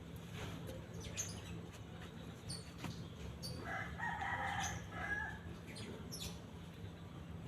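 A rooster crows once in the distance, from about three and a half seconds in for about a second and a half, over a low steady hum. Small birds chirp briefly now and then.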